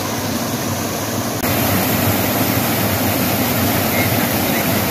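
Water rushing over a small rocky cascade in a stream, a steady rush that grows louder about a second and a half in.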